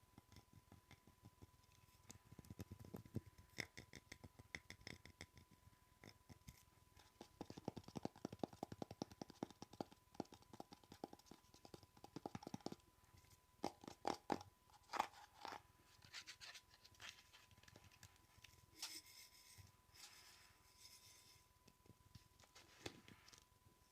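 Close-miked ASMR tapping and scratching on objects: quiet clicks and scrapes, with a fast, dense run of taps in the middle and scattered scratchy strokes later. A faint steady high tone sits underneath.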